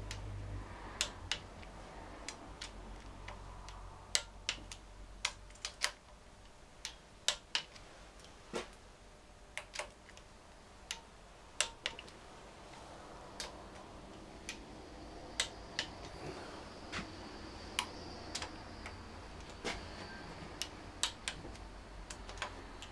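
Ratchet torque wrench clicking in sharp, irregularly spaced ticks, some in quick pairs, as the crankcase bolts of a Triumph Trident T150V engine are pulled up to 12 foot-pounds one after another.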